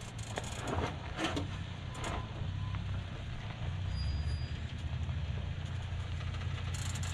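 Toyota Tacoma pickup crawling slowly down a steep rocky slope, its engine a steady low rumble that grows a little stronger about halfway through. A few short crunches of tyres on rock and gravel come in the first two seconds.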